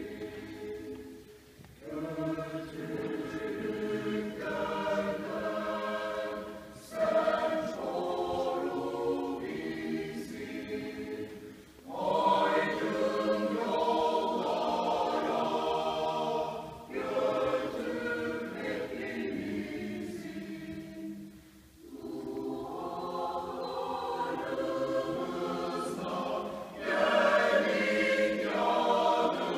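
Mixed choir of men and women singing unaccompanied in several parts, in phrases of a few seconds broken by brief pauses, with a fresh, louder entry about seven seconds in and again around twelve seconds.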